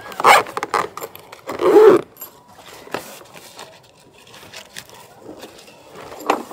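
Handling noise of a black fabric storage bag being closed and picked up by its handles: fabric rustling and scraping with small clicks, loudest about two seconds in.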